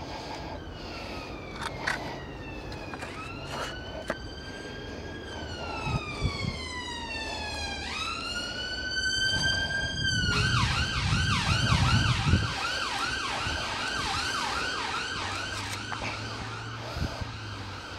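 Emergency vehicle siren sounding: a slow rising-and-falling wail, switching about ten seconds in to a fast yelp that stops shortly before the end. A few short knocks sound underneath.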